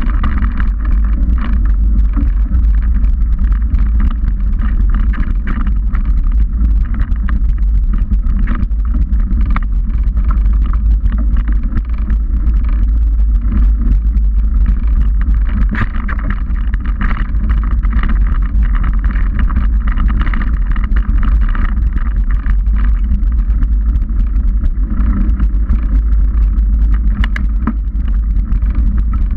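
Trek 29er mountain bike riding over a rocky dirt trail, heard through the camera mounted on the bike: a loud, steady low rumble of tyre and wind noise with frequent small rattles and clicks from the bike over bumps.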